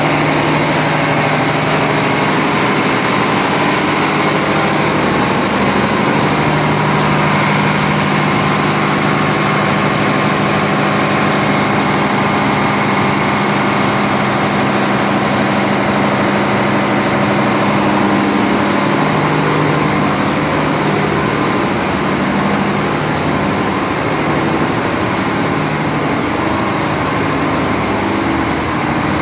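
Large marine diesel engines running steadily in a ship's engine room: a loud, constant drone with a steady hum, no change in speed.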